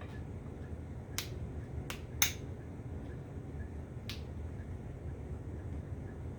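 Sharp clicks of a small hand tool prying staples out of wooden spindles: four separate clicks, the loudest a little past two seconds in, over a steady low hum.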